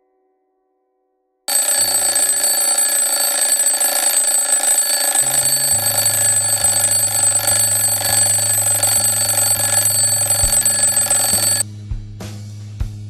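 Mechanical twin-bell alarm clock ringing continuously, its hammer rattling between the two bells. It starts about a second and a half in and cuts off suddenly near the end, while a song's bass line and drum beat come in underneath.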